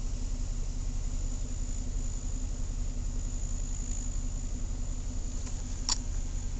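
Insects chirring in one steady, high-pitched drone over a steady low hum, with a single short click near the end.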